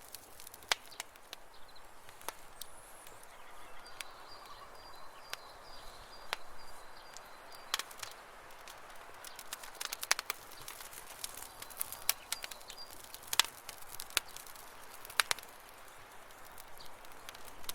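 Irregular sharp clicks and crackles over a faint outdoor hiss, with a faint thin high whistle for a few seconds about four seconds in.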